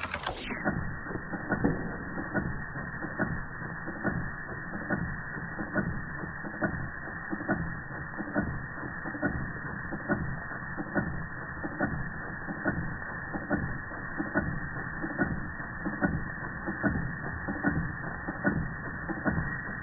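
Antique Georges Carette Model 175 twin oscillating-cylinder toy steam engine running, giving a steady rhythm of light mechanical clicks and knocks.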